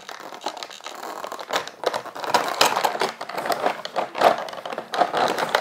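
Scissors cutting through a stiff clear plastic clamshell toy package, the plastic crinkling and crackling in irregular snips; the plastic is hard to cut.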